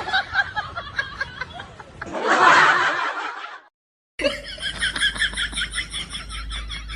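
People laughing in rapid bursts, broken by a brief silence about halfway through, then more laughing.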